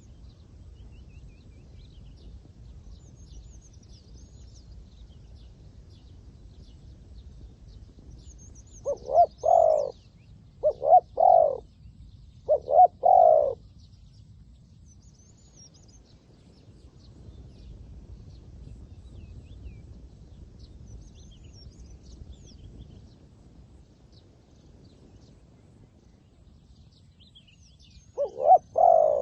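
A dove cooing in three short phrases of a few notes each, about a third of the way in, and starting again near the end. Faint high chirps of small birds sound throughout.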